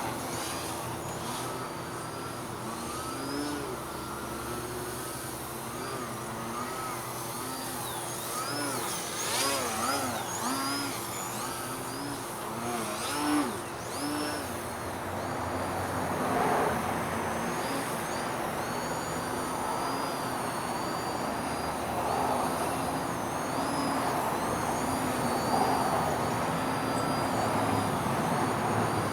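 Electric motor and propeller of a small RC 3D plane (2200kv brushless motor on a 2s lipo) whining in flight, its pitch rising and falling again and again as the throttle changes and the plane passes.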